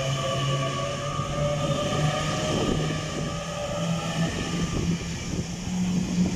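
Class 802 bi-mode train pulling out of the station and accelerating, its drive note rising steadily in pitch.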